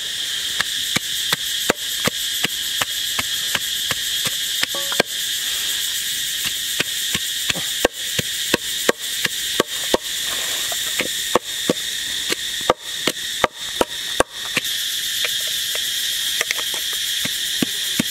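Wooden pestle pounding in a wooden mortar, crushing galangal and chilies into a paste: sharp, even knocks about three a second. Underneath runs a steady high chirring of insects.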